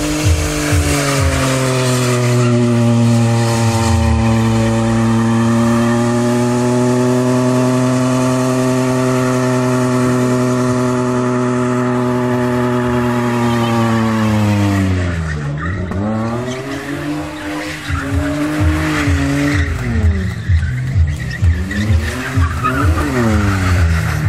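BMW E34 5 Series doing a burnout: the engine is held at steady high revs with the rear tyres spinning and squealing for about fifteen seconds. Then the revs drop and it is blipped up and down several times while the tyres keep screeching.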